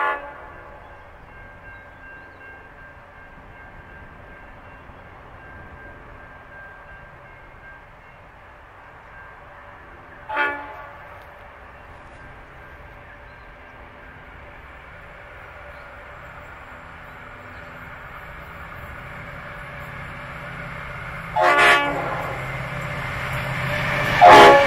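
Approaching Pacific National freight train led by three BL class diesel locomotives sounding short horn blasts: one at the start, one about ten seconds later, then two more close together near the end, each louder than the one before. Beneath them the locomotives' engine drone grows steadily louder as the train nears.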